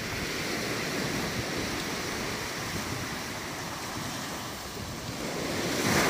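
Sea surf washing in steadily, with a wave surging up louder near the end.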